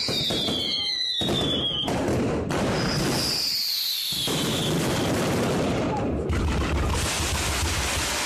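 Fireworks going off at close range: a continuous barrage of crackling and bangs, with whistling fireworks whose whistles fall in pitch, once near the start and again about three seconds in.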